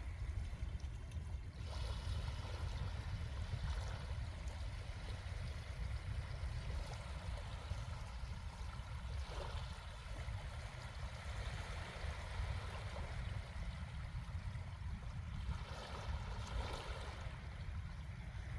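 Small sea waves washing onto a beach, the wash swelling and fading every few seconds, over a steady low rumble.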